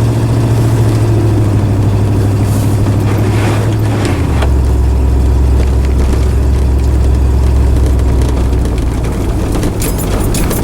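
A motor vehicle engine running steadily, its pitch dropping to a lower, steady idle about four seconds in.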